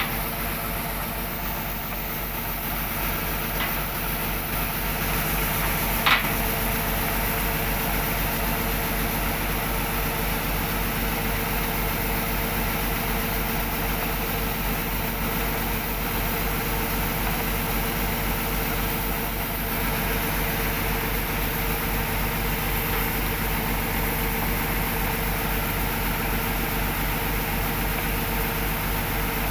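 Kubota DC105X combine harvester's diesel engine running steadily under load while its unloading auger pours rice grain into a truck bed. One sharp click about six seconds in.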